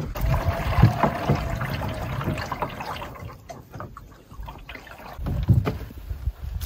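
Canoe on a lake: paddle strokes and water splashing and sloshing against the hull, louder at first, easing off in the middle and picking up again near the end.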